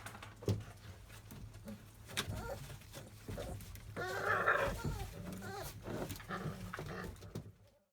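Month-old Labrador Retriever puppies at play: a high, wavering puppy whine about four seconds in, among scattered light knocks and scrabbling of paws, over a steady low hum. The sound cuts off near the end.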